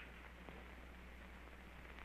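Near silence: the steady low hum and hiss of an early sound-film soundtrack, with a faint click about half a second in.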